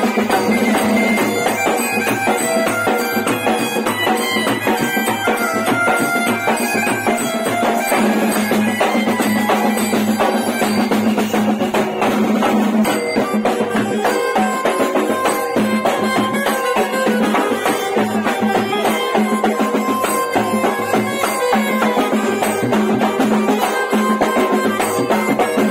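Street procession band music, loud and continuous: fast drumming and crashing cymbals under an amplified melody over a steady drone.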